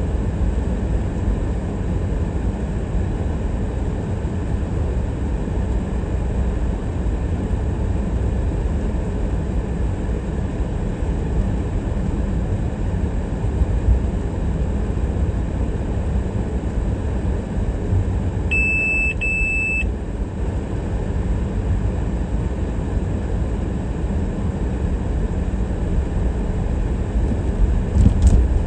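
Steady low rumble of a car driving on city streets. About two-thirds of the way through, a short high electronic beep sounds twice in quick succession, and a brief knock comes near the end.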